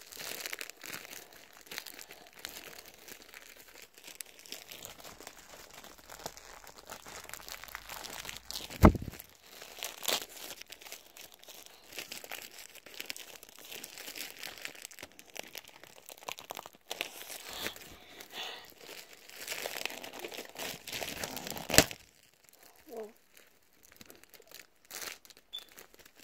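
Packaging of a sticker-collection starter pack being crinkled and torn open by hand, a long struggle of irregular crackling with two sharp knocks, about nine seconds in and near the end. The crackling dies down after the second knock.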